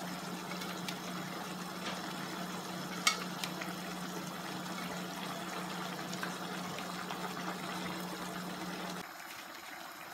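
Paella sauce simmering and bubbling in a wide metal pan on a gas hob, with a few light clicks of tongs against the pan as the shrimp are lifted out. A steady low hum underneath stops about nine seconds in.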